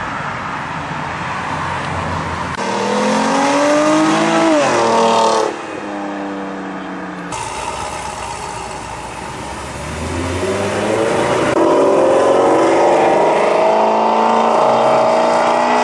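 Sports-car engines accelerating away in a string of short clips cut together, their pitch climbing as they rev. From about seven seconds in, a C7 Corvette's V8 pulls off, its note rising steadily.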